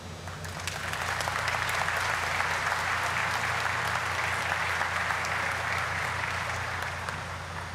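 Audience applauding, building up over the first second or so and tapering off near the end, over a steady low hum.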